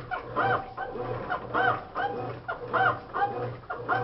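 Consul Maré top-loading washing machine agitating, with a squeal on each stroke of the agitator, about every half second or so, over a pulsing motor hum. This is the abnormal agitation noise that remains after the mechanism assembly, seal, bearings and capacitor were replaced, with the agitator seeming to run slow.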